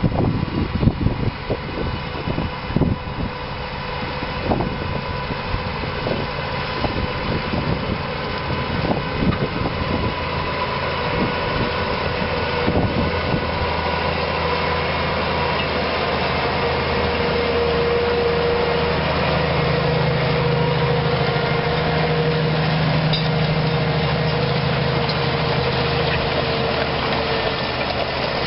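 Large diesel tractor engine running steadily under load as it pulls a multi-furrow reversible plough, growing louder as it comes closer. Wind gusts on the microphone over the first ten seconds or so.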